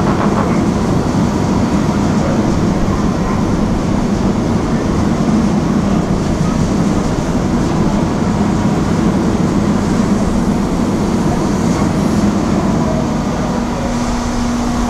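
Large car ferry's machinery running alongside the quay: a steady low rumble and drone. A steady higher hum joins near the end.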